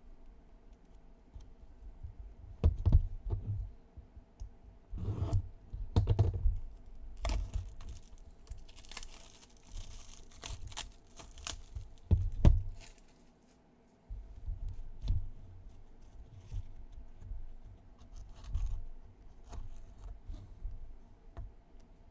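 A trading-card box being handled and opened: scattered cardboard clicks, taps and low thumps, with a stretch of crinkling and tearing of packaging about nine to eleven seconds in.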